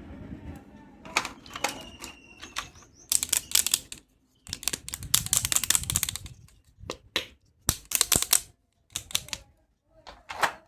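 Hard plastic toy medical tools clicking and clattering as they are handled, in quick clusters of clicks separated by short pauses.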